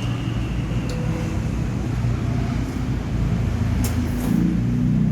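Close-miked eating sounds: a person chewing a mouthful of noodles, a dense low rumble of mouth noise with a couple of small clicks.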